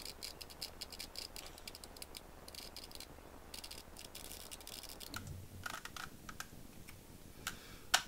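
Rubik's Cube being twisted by hand: quick runs of faint plastic clicking as the layers turn, thinning out to a few scattered clicks and soft knocks after about five seconds.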